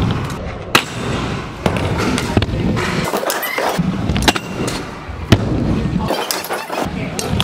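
Scooter wheels rolling over wooden skatepark ramps, with several sharp clacks of the scooter hitting the ramp surface, echoing in a large indoor hall.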